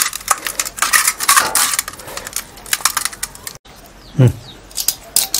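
Rustling, squelching clicks and light clinks of a stainless-steel bowl as a raw whole chicken is stuffed with coriander and mint and handled in the bowl. About four seconds in comes one short falling low sound.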